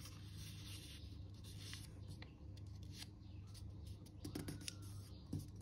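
A sheet of paper being folded and creased by hand on a tabletop: soft rustling and light crinkling, a little louder about four and five seconds in, over a steady low hum.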